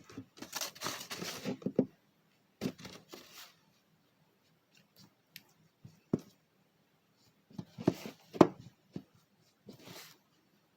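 Several short bursts of rustling and scraping, with a few sharp clicks and knocks between them, from handling paint supplies and working the brush.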